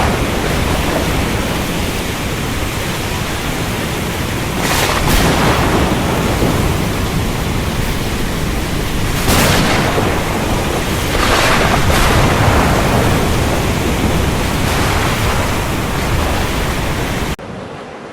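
Strong storm wind blasting across the microphone: a loud, steady rush with a heavy low rumble, swelling in gusts about five, nine and eleven seconds in. Near the end it cuts abruptly to a quieter, thinner-sounding windy recording.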